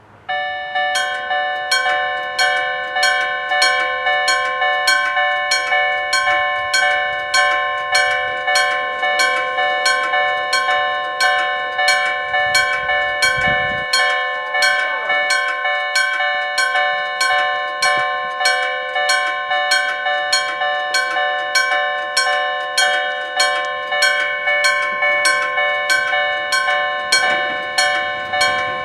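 Japanese railway level-crossing warning starting abruptly: an electric gong struck in a fast, even rhythm. It rings together with the electronic warning tone of the crossing signal on the other side.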